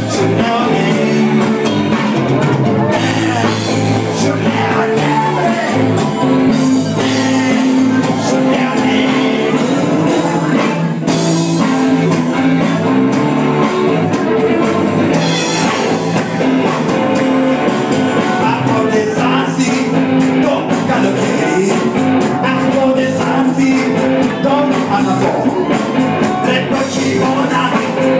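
Rock song performed live, with singing over a full band with steady drums.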